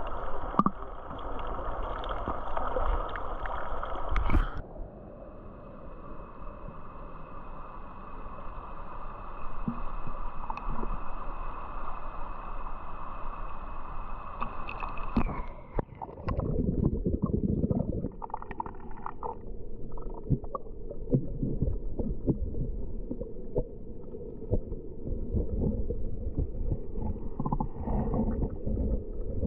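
Muffled underwater noise in a swimming pool as picked up by the camera's own microphone: gurgling and low rumbling of moving water with small knocks. From about five to fifteen seconds in, a steady high whine with hiss takes over before the low rumbling returns.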